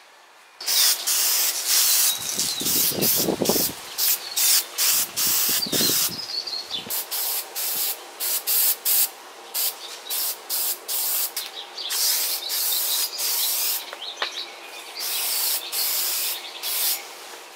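Aerosol spray can of satin clear coat spraying onto a motorcycle gas tank, a loud hiss in many short bursts and longer passes that starts about half a second in.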